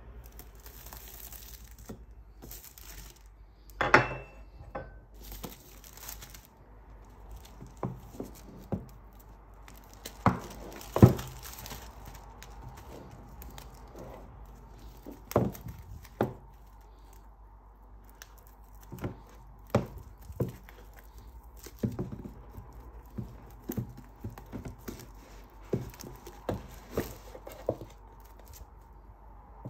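Plastic shrink wrap being slit and torn off a cardboard box, crinkling, with scattered sharp knocks and taps as the box is handled and turned.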